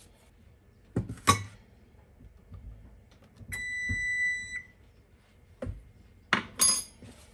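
Sharp clinks and taps of a metal measuring spoon on a stainless steel mixing bowl as a tablespoon of flour is added to the pie filling, twice near the start and again near the end. About halfway through, a single steady electronic beep sounds for about a second.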